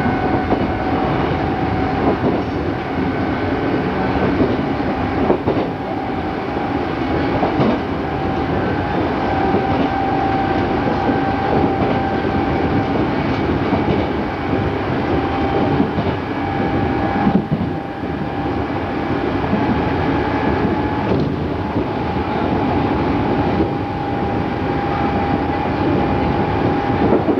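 Running sound inside an unrenewed Odakyu 8000 series field-chopper electric train car, moving steadily along the line. There is a continuous rumble with a steady high tone and a few scattered wheel clicks over rail joints.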